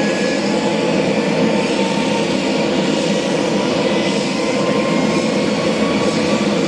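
Bell Boeing CMV-22B Osprey's twin Rolls-Royce AE 1107C turboshaft engines running on the ground, a steady, loud noise with faint whines slowly rising in pitch.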